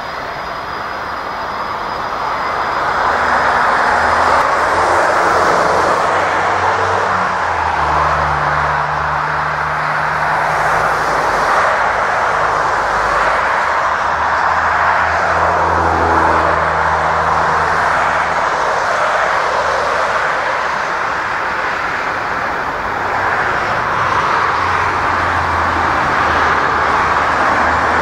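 Twin-engine jet airliner taking off, its engines at takeoff thrust: a loud, steady roar that swells about two to four seconds in and holds as the aircraft accelerates down the runway and climbs out.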